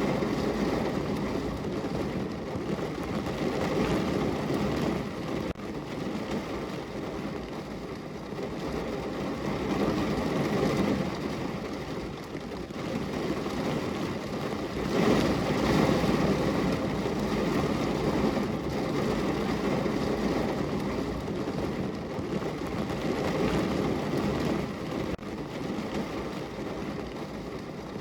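Heavy rain falling on a car's roof, heard from inside the car as a dense, steady patter that swells louder about halfway through.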